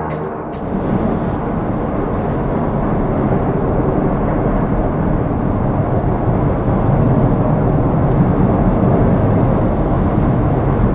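Antonov An-26 turboprop airliner's engines running at high power during its takeoff, a loud, steady rumble that grows a little louder past the middle.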